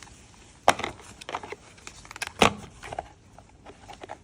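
Battery lead connectors being handled and pushed onto the new battery's terminals: a run of sharp plastic clicks and knocks, with two loud snaps about 0.7 s and 2.4 s in.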